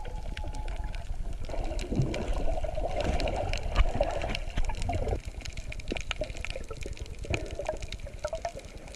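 Water noise picked up underwater by an action camera in its housing, with many scattered clicks. It is louder for about the first five seconds, then quieter.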